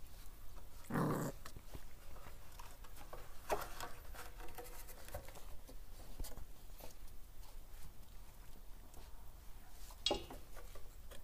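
Puppies playing: three short yips, about a second in, about three and a half seconds in, and near the end, with light scuffling between them.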